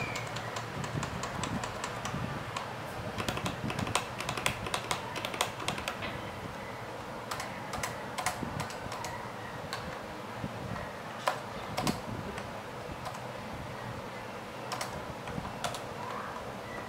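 Keystrokes on a Topre-switch keyboard: rapid, continuous typing for the first six seconds, thinning out to slower, scattered keystrokes.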